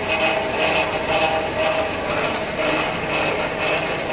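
Brick-making machinery with a belt conveyor running steadily, with a regular clattering pulse about two and a half times a second.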